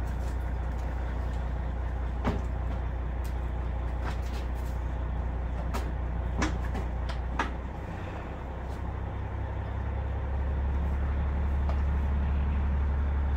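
Truck engine idling with a steady low drone that grows louder about ten seconds in, with a few sharp clicks and knocks over it.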